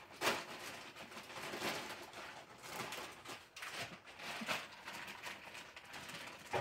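Faint rustling with a few soft clicks scattered through it: a hand stroking the fur of a dog lying on a lap.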